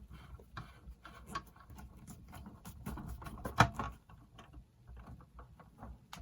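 Small screwdriver turning out three screws inside a JVC RC-660 boombox: faint, irregular clicks and scratchy ticks of metal on metal and plastic, with one louder click about three and a half seconds in.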